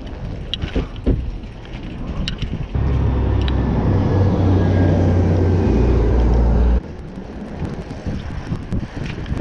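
Bicycle ride heard through a handlebar-mounted GoPro: light rattles and clicks from the bike. About three seconds in, a loud, steady low rumble of road traffic starts suddenly and cuts off just as suddenly about four seconds later. After that the rattling and sharp ticking return.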